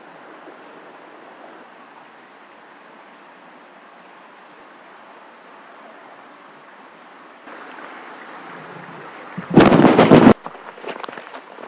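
Steady hiss of outdoor ambience in a snowy forest, then, about ten seconds in, a sudden very loud rushing burst lasting under a second, followed by scattered crunching and snapping in snow and brush.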